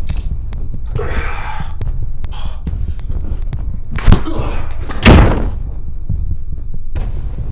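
Sledgehammer blow and a body falling to the floor: a sharp thud about four seconds in, then a heavier, longer thud a second later, over a low steady rumble.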